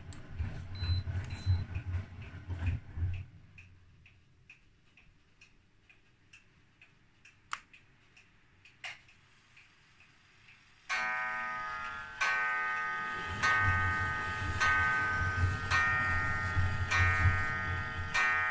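1968 Scharpf Elektronica 2920 washing machine on a boil wash. The drum turns with a low rumble and regular ticking rattle, the rattle typical of its magnetic clutch with counterweight freewheel. The drum then pauses with only faint ticks, and about eleven seconds in the motor starts again suddenly with a steady whine over the rhythmic rattle and rumble.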